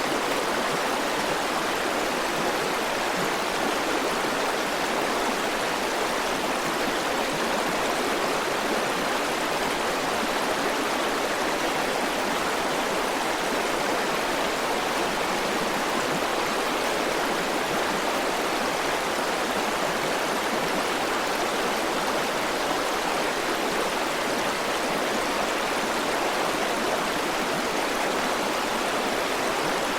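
River water flowing steadily over rocks, an even rushing and gurgling with no breaks or changes.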